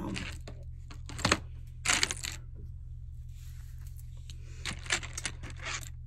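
A few short clicks and light clinks of small hard objects being handled close to the microphone: one about a second in, a longer rustle around two seconds, and a cluster of small clicks near the end.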